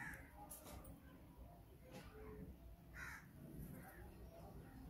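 A crow cawing faintly, two single caws about three seconds apart, with a few faint clicks between them.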